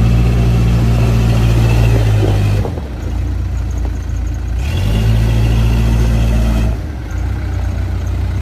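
The 80 hp Case diesel engine of a Case 580M Series 2 loader backhoe runs at raised speed with a faint whine. It drops abruptly to a lower, pulsing idle, comes back up for about two seconds, then drops to idle again.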